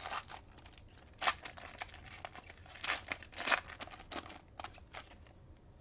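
Foil wrapper of a Panini Chronicles trading-card pack crinkling and tearing as it is pulled open by hand, in irregular crackly bursts, loudest about a second in and again around three seconds in.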